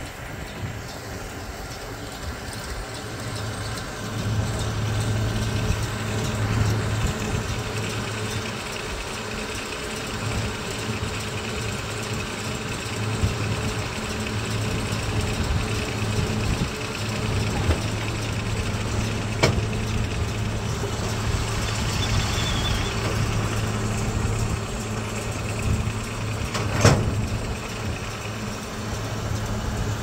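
John Deere tractor and round baler baling hay: a steady low engine drone with the baler's machinery running. Two sharp knocks come in the second half, the second louder.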